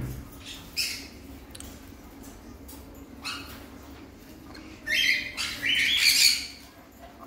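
Crimson-bellied conures squawking: a couple of short calls in the first few seconds, then two louder, longer squawks about five and six seconds in.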